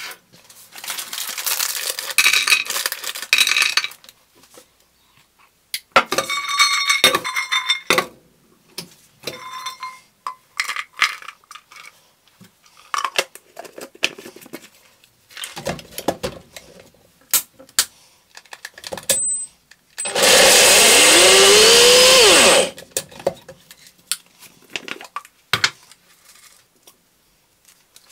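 A single-serve blender runs for about two seconds, blending spinach and cashew nut pesto, its pitch gliding up and then dropping. Before and after it come scattered knocks, clinks and scrapes from a blender cup, lid and utensils being handled.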